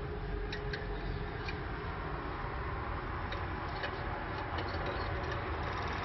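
Canaries giving short, faint high chirps, scattered irregularly and quickening into a brief rapid run near the end, over a steady background hiss.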